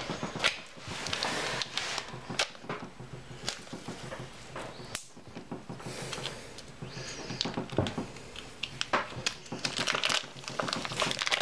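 Plastic vacuum packaging crinkling and tearing as it is cut open and peeled off a large raw pork loin. The rustling is irregular, with a few sharper snaps.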